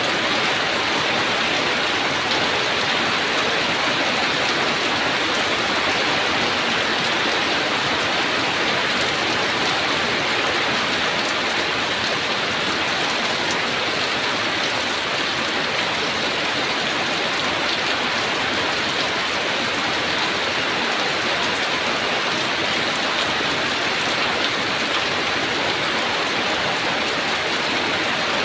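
Heavy rain falling steadily, a dense even hiss of rain on surfaces with faint scattered drop ticks.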